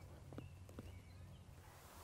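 Near silence: faint field ambience with a low steady rumble, a few soft ticks and faint bird chirps.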